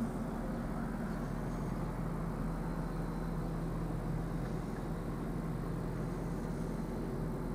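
Jaguar XK8's 4.0-litre V8 running steadily at low revs, a low, even hum heard from inside the cabin.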